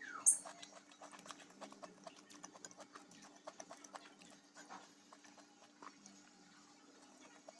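Close-up eating sounds: chewing and lip-smacking with a rapid, irregular run of small wet clicks. One sharp, high crackle comes about a quarter second in.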